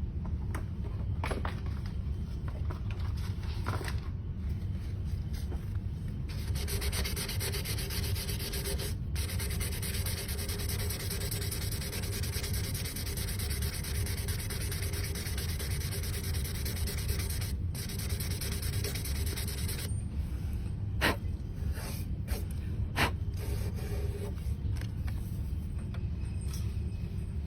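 Abrasive paper rubbing on a cello nut: a continuous scratchy hiss through the middle, broken off briefly twice, then a couple of light taps near the end.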